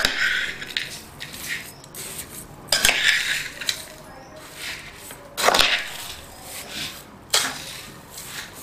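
A steel spoon stirring grated carrot, sugar and khoya in a pressure cooker pot, scraping through the sugar. It knocks against the pot about four times, a couple of seconds apart.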